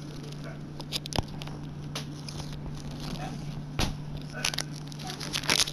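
Handling noise: scattered clicks and crackles that grow denser near the end, over a steady low hum.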